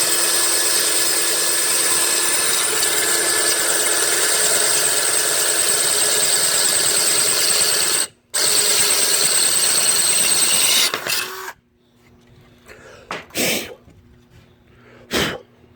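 Electric drill running with a Black & Decker glass and tile bit boring through ceramic tile: a steady motor whine with the grinding of the bit. It stops briefly about 8 s in, runs again, then stops about 11 s in, followed by a few short faint knocks.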